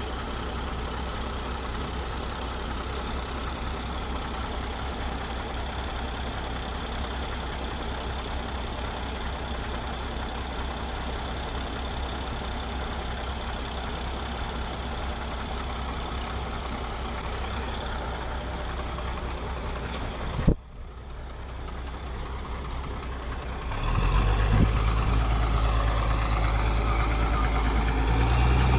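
Heavy truck engine running steadily. About two-thirds of the way through there is a sharp click and a brief drop, then a louder, deeper engine sound.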